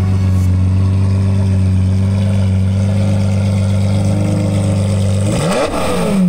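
Straight-piped Lamborghini Murciélago V12 idling steadily, then blipped in a quick rev near the end, the pitch rising and falling back.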